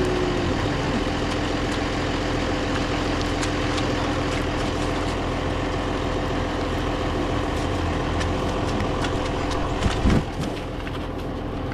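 John Deere 7520 tractor's six-cylinder diesel engine idling steadily, with a brief thump about ten seconds in.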